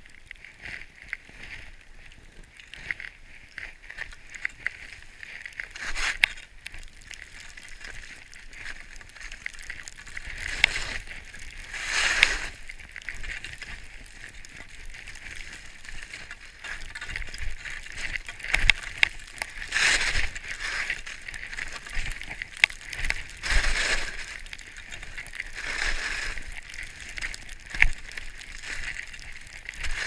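Skis hissing and sliding through fresh powder snow, the hiss swelling and fading every few seconds.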